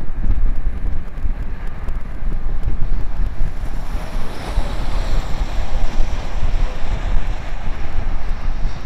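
Heavy wind buffeting on the microphone of a bike-mounted camera riding at speed. About four seconds in, a passing car's tyre noise swells and fades over it.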